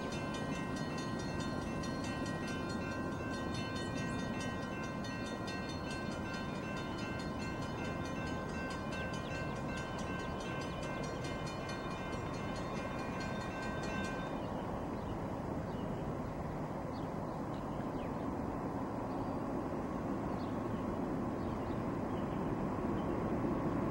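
Railroad grade-crossing bell ringing steadily at a quick, even beat, stopping about 14 seconds in. After it stops, the rumble of an approaching diesel freight train grows louder near the end.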